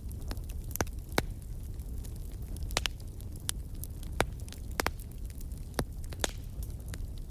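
Wood fire crackling: irregular sharp pops and snaps, roughly one or two a second, over a steady low noise of burning.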